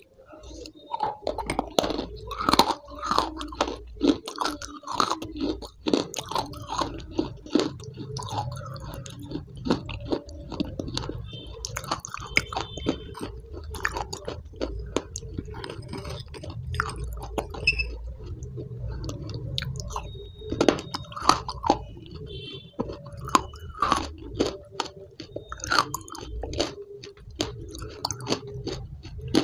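Close-miked mouth sounds of someone eating spoonfuls of a thick brown powdery paste: continuous chewing with crunching, crackling clicks and wet smacks.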